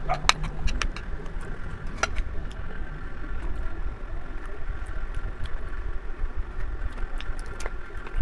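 Eating at a table: a few sharp clicks of a spoon against a bowl and mouth sounds in the first two seconds, then quieter handling of food. A steady low rumble runs underneath throughout.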